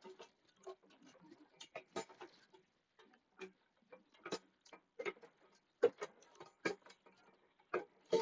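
Irregular light clicks and knocks from hands working motorcycle exhaust parts into place.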